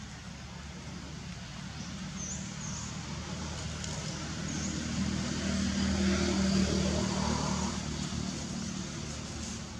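A motor vehicle's engine passing by: a low hum that grows louder to a peak about six to seven seconds in, then fades. A few short, high bird chirps sound above it.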